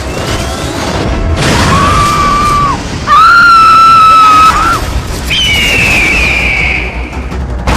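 Action-film soundtrack with music and booms, overlaid with loud added sound effects: three long held tones, the second and loudest about three seconds in and lasting over a second, the last one higher and falling slightly in pitch.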